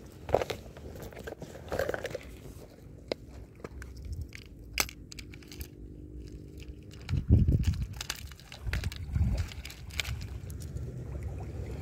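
Close handling noises: scattered sharp clicks and rustles, with two louder low buffets of wind on the microphone about seven and nine seconds in.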